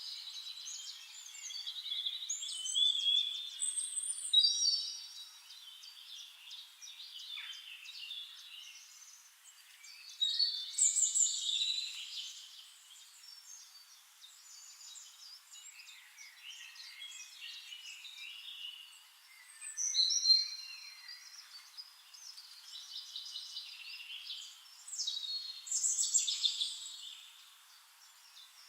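Several songbirds singing, overlapping phrases of chirps, trills and whistles, rising into louder bursts every several seconds.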